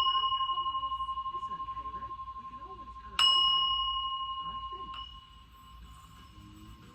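Singing bowl ringing with a clear, pulsing tone that slowly fades, struck again about three seconds in and tapped lightly about five seconds in.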